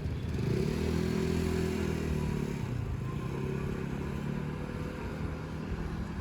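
A motor vehicle's engine running, its pitch rising and then falling in the first couple of seconds, then carrying on steadily.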